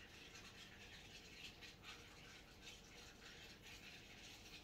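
Near silence, with faint soft rustles and scrapes as a small carved wooden gazelle figurine is turned over in the hands.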